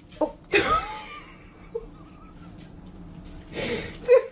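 A person laughing breathlessly and wheezing, with a loud outburst about half a second in and short, quick laughs near the end.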